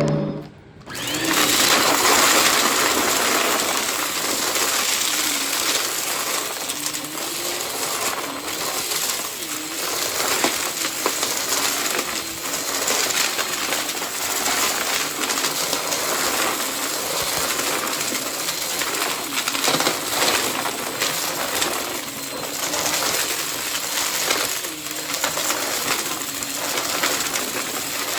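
Vacuum cleaner running steadily during vacuuming, with faint wavering tones under the motor noise. The sound drops out briefly at the very start and picks up again about a second in.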